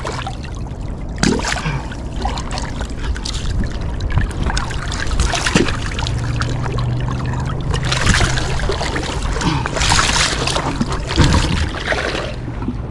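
Water splashing and trickling, with scattered knocks and scrapes from handling in a boat.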